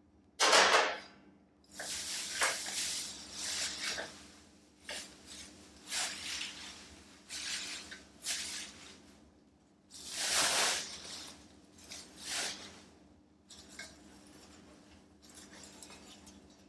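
Shredded-paper packing and a plastic bag rustling and crinkling in irregular bursts as hands dig through a box of sheet-steel body panels, loudest about ten seconds in.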